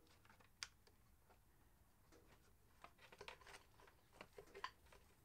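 Faint handling sounds of wires and plastic: one sharp click about half a second in, then a run of small clicks and rustles from about three seconds in, as wiring is pulled up through a motorcycle's plastic tail unit.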